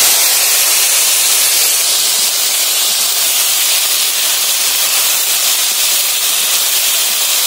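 Wet, freshly soaked jujubes (kul) frying in hot oil in a karahi: a loud, steady sizzling hiss as their water boils off in the oil.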